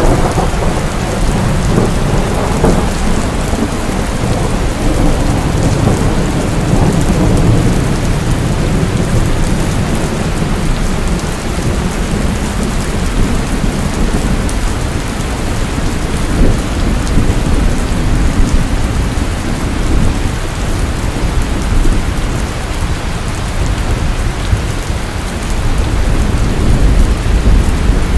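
Steady rain falling, with a low rumble of thunder underneath that swells near the start and again near the end.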